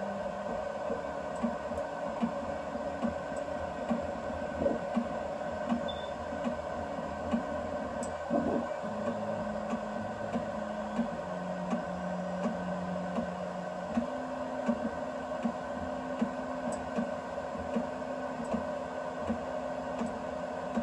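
BIBO Touch X dual-extruder 3D printer printing: the steady hum of its cooling fans, under lower motor tones that step between pitches every second or two as the print head moves. Short ticks come about every three-quarters of a second.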